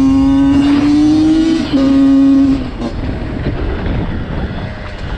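Dirt bike engine pulling under throttle, its pitch climbing steadily. About a second and a half in it breaks off briefly and comes back lower, like a gear change. It pulls again for under a second, then backs off to a quieter rumble for the rest.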